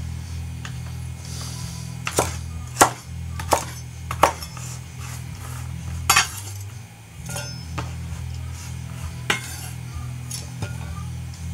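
Ikea Slitbar kitchen knife making irregular sharp clicks and a few short metallic scrapes, about seven in all, the loudest a few seconds in, over steady background music.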